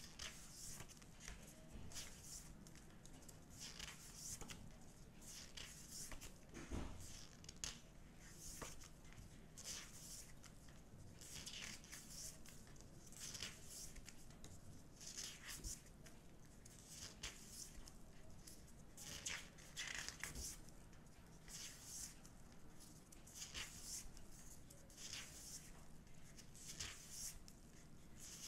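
Glossy photobook pages turned and handled by hands in disposable gloves: a run of soft paper rustles and page flips, with one light thump about seven seconds in.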